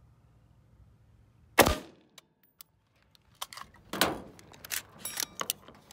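A single sharp rifle shot from a 5.56 NATO carbine firing M193 55-grain full metal jacket ball, about one and a half seconds in. A couple of seconds later comes a scatter of clicks and knocks.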